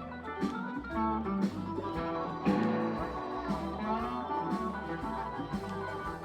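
Live blues-rock band playing an instrumental passage: guitar lead with notes that bend in pitch, over bass and drums keeping a steady beat.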